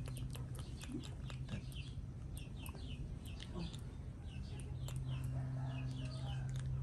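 Birds chirping rapidly: many short, falling chirps, several a second, with scattered sharp clicks and a steady low hum underneath.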